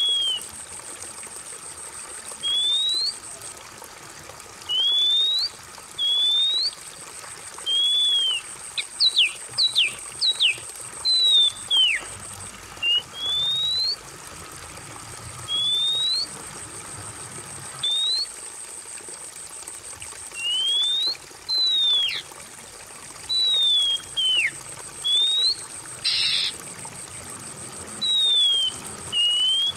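Water trickling steadily under a bird whistling short slurred notes, rising or falling, one every second or two. A few quick, steep downward-swooping notes come about ten seconds in and again past twenty seconds.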